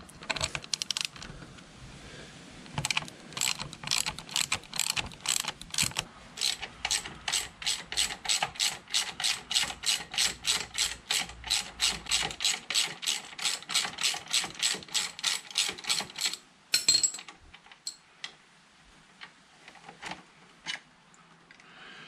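Socket ratchet clicking in an even rhythm, about three clicks a second, as it winds out a rear brake caliper mounting bolt. The run of clicks stops about four seconds before the end, leaving a few scattered light clicks.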